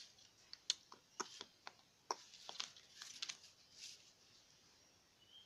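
Faint, scattered clicks and taps, about a dozen in the first four seconds, from a small plastic ruler and pencil being handled, set down and shifted on a sheet of drawing paper.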